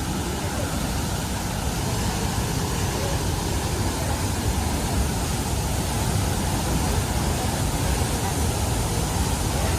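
Devi's Fall waterfall: a loud, steady rush of plunging water, heavy in the low end.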